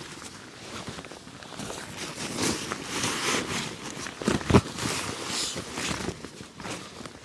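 Rustling and handling noise of camping gear being packed into a bag, with a sharp thump about four and a half seconds in.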